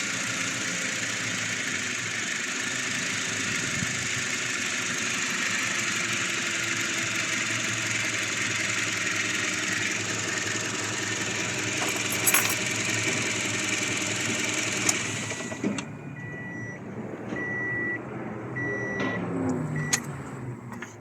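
Toyota Hiace van engine idling steadily, then switched off about 15 seconds in, followed by a few short, even electronic warning beeps from the vehicle.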